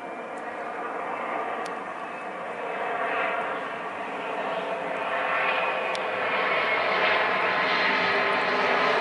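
Jet engines of a three-engined Dassault Falcon business jet on landing approach with gear down: a steady whining roar that grows louder as the jet comes closer.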